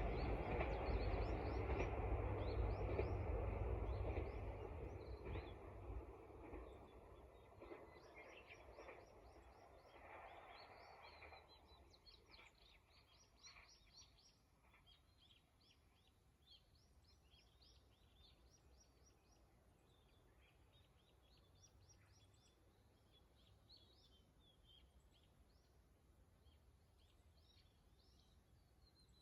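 A train that has just passed fades away, its rumble dying out over the first ten seconds or so. Wild birds chirp and sing faintly through the rest.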